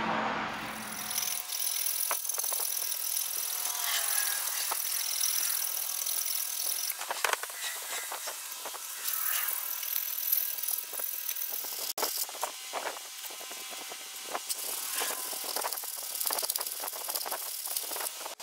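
Hand file rasping back and forth on the aluminium of a Minarelli scooter crankcase, widening the intake reed opening so larger KX85 reeds will fit; a long run of irregular, scratchy file strokes.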